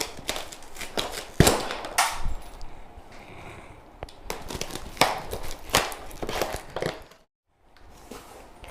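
A run of sharp knocks and thumps from a boxed microwave oven's cardboard carton being handled and opened for unboxing. The loudest knock comes about a second and a half in, and the sound drops out to silence for a moment near the end.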